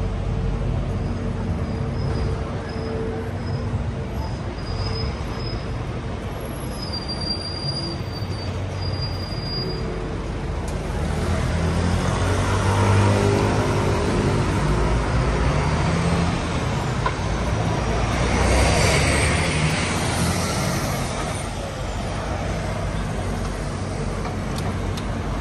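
City street traffic with the low hum of a large vehicle's engine, growing louder from about halfway as it passes close. A brief hiss comes a few seconds before the end.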